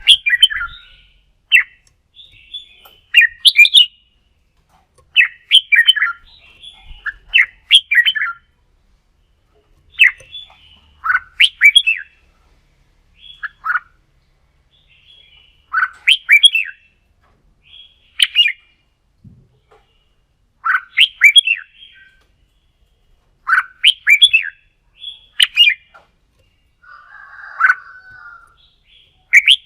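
Red-whiskered bulbul singing: short, quick warbled phrases repeated every second or two with brief pauses, and a harsher, scratchy call near the end.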